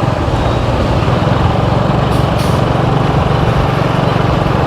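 Steady engine and road noise of a moving motorbike, heard from on board, mostly low and even with no sharp events.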